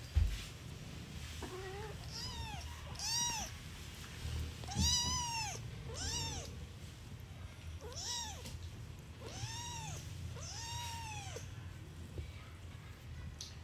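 A young kitten mewing, about eight high-pitched mews over several seconds, each rising and then falling in pitch, one near the middle drawn out longer. A sharp thump right at the start.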